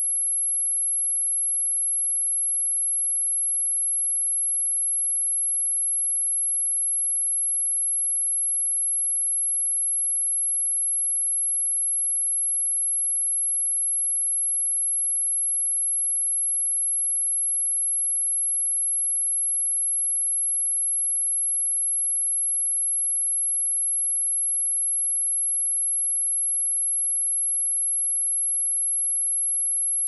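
A steady, high-pitched pure sine-wave test tone at 11,082 Hz, with no change in pitch or loudness.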